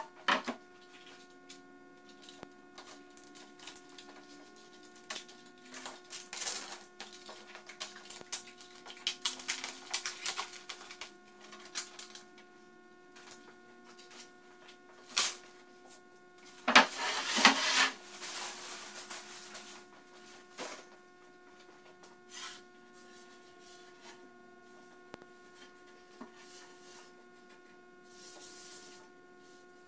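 A wooden panel being handled on a plywood workbench: knocks as the board is set down and shifted, and rustling handling noise, loudest in a burst a little past the middle, over a steady electrical hum.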